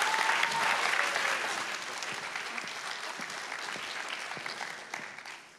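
Audience applauding, the clapping slowly dying away and stopping near the end.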